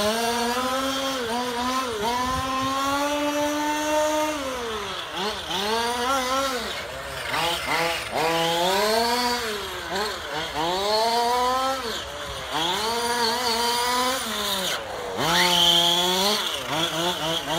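Losi Mini WRC radio-controlled rally car's electric motor and gear drive whining, the pitch rising and falling over and over as the throttle is opened and let off through the corners.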